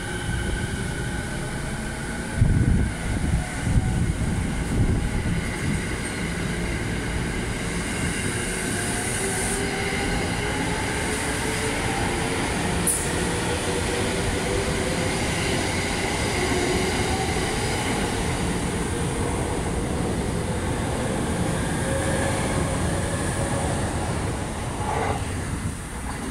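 E231 series electric commuter train pulling out of a station and accelerating past. Its traction motor whine climbs steadily in pitch over a continuous rumble of wheels on rail, with heavier thumps in the first few seconds, and the sound fades near the end as the train draws away.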